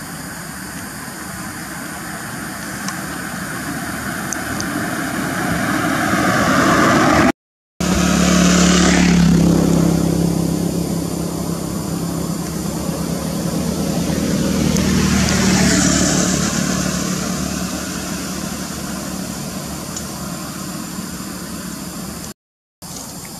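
Motor vehicles passing close by: engine noise swells and fades away twice, with a short dropout in the sound at the first peak and another near the end.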